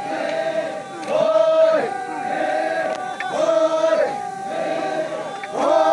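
Group of Sangtam Naga dancers chanting a traditional dance song together, mostly men's voices, in short repeated phrases that alternate in a steady pattern.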